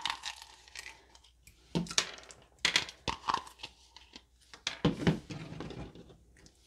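Wet, gooey slime being pulled out of a plastic bowl and pressed onto a table, squelching and crackling in a handful of separate sticky pops.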